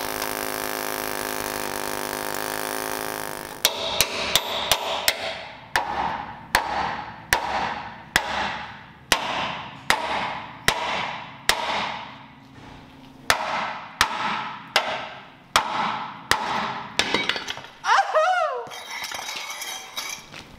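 An air chisel hammers continuously on a rusted steel frame rivet for about three and a half seconds. Then a hand hammer strikes the steel spring-hanger bracket in steady ringing blows, a little more than one a second, to drive the rivet out. Near the end a piece of metal clatters and rings with a wavering pitch.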